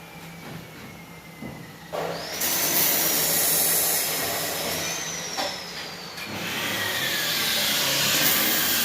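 A power tool running with a steady hiss and a high whine that slowly falls in pitch, starting about two seconds in, dipping briefly around six seconds, then running again.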